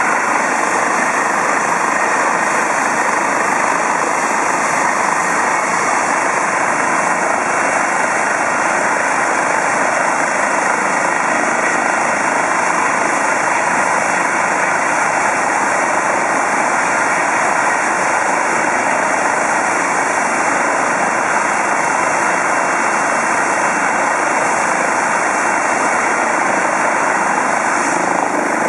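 Eurocopter EC 135 twin-turbine helicopter running on the ground with its rotor turning, a loud, steady turbine and rotor noise as it waits at flight idle before lift-off.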